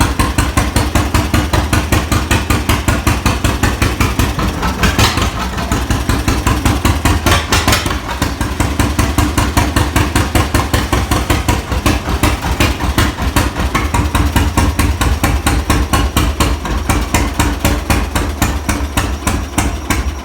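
John Deere Model A's two-cylinder engine running with a steady, even popping beat.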